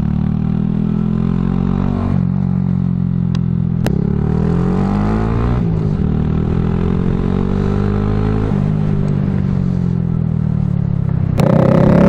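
Honda Grom MSX125's single-cylinder 125cc engine running through a cheap aftermarket dual-outlet full exhaust while ridden slowly, its pitch rising and falling with throttle and gear changes. Near the end a loud rushing noise cuts in over the engine.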